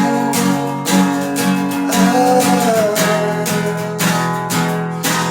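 Acoustic guitar strumming chords, with a stroke about once a second.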